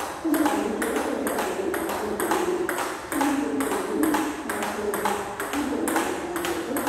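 Table tennis rally: the celluloid ball clicking off the bats and bouncing on the table in a quick, even rhythm, several clicks a second.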